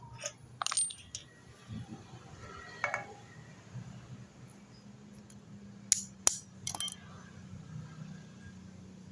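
Metal tools and small metal parts clinking and clattering in several separate knocks, with a faint steady low hum in the background from a few seconds in.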